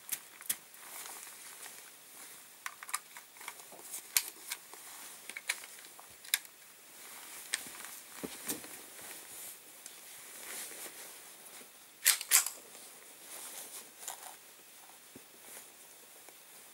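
Scattered clicks, knocks and rustles of a rifle and clothing being handled as the shooter settles prone behind a suppressed Ruger 10/22 Takedown. Two sharp, louder clicks come close together about twelve seconds in.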